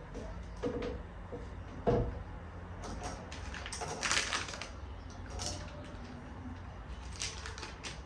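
Groceries being handled and packed into a fridge: scattered light knocks and clicks of containers and packaging, the sharpest about two seconds in, over a low steady hum.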